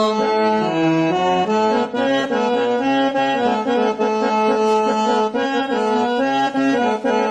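Background music: an instrumental break between sung verses of a devotional folk song, a melody stepping through notes over a held low note.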